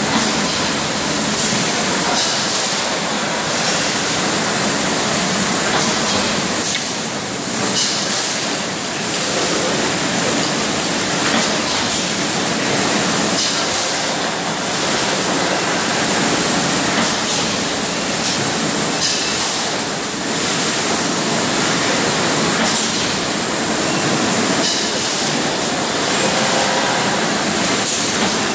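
Automatic water bottling line running: conveyors and the rotary filling-capping machine make a steady, dense machine hiss.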